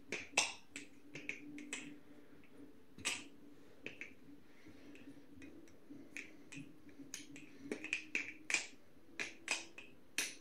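A Kraken-clone butterfly knife (balisong) being flipped: irregular sharp clicks and clacks as the handles swing and strike, sparse at first and coming in quicker flurries from about seven seconds in. Its pivots are freshly lubed with KPL, and the owner thinks it could be tightened a little more to avoid blade rub.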